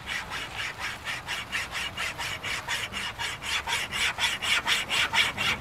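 Pocket cable chain saw, strung on a bent-stick bow, rasping back and forth through a dry wooden limb in quick, even strokes, about five a second.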